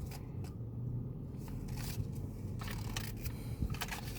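Light clicks and rustles of small plastic toys and packaging being handled, over a steady low hum inside a car.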